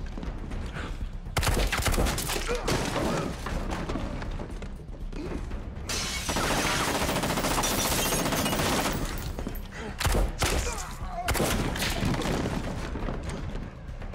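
Heavy rifle gunfire in a shootout, in long stretches of rapid automatic fire with brief pauses between them. Bullets are hitting window glass.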